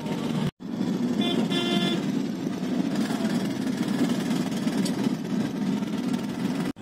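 Traffic and road noise heard from inside a moving car, with a vehicle horn beeping twice, briefly, about a second in.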